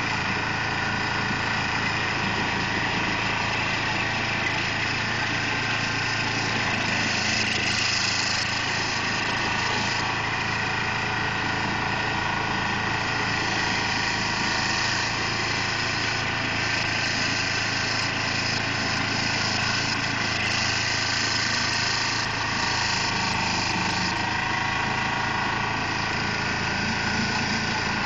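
Carlton SP4012 stump grinder's engine running steadily while its cutter wheel grinds into a stump.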